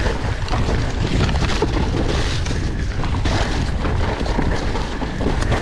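Mountain bike riding fast down a rough dirt trail: a steady low rumble of wind on the microphone and tyres on dirt, with many quick knocks and rattles from the bike as it runs over bumps.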